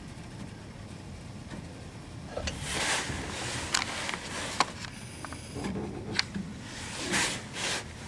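Intermittent scraping and several sharp clicks of metal as a truck's rear fuel tank is lowered on a jack past the exhaust pipe, starting a couple of seconds in.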